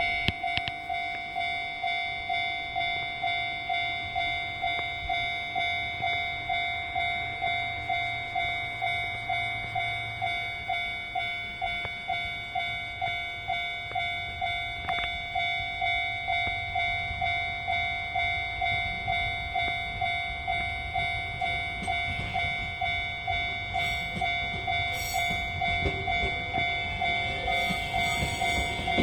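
Japanese level-crossing warning bell ringing steadily, one clear ding about twice a second. The rumble and clatter of the approaching train build faintly near the end.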